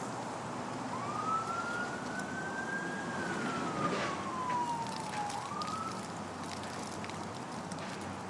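A distant siren wailing in one slow rise and fall, then starting to rise again, over steady outdoor background noise. A brief sharp sound comes about four seconds in.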